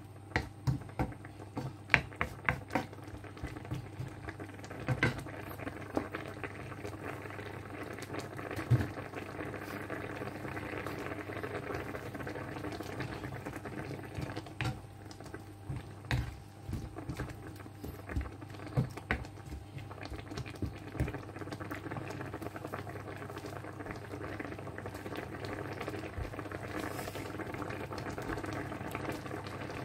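Curry broth bubbling at a boil in a wok, with a wooden spoon stirring and knocking against the pan now and then, most often in the first twenty seconds.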